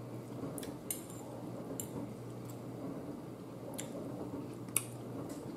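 Metal fork clinking and scraping against a plate of food: a handful of short, sharp ticks, the loudest near the end.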